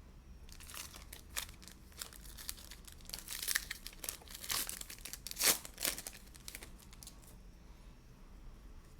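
Plastic wrapper of a Donruss basketball card pack being torn open and crinkled by hand, an irregular run of crackles with the loudest rustle past the middle.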